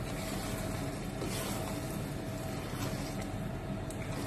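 A silicone spatula stirring and scraping a thick egg and eggplant mixture in a pot, over a steady low drone with a faint constant whine.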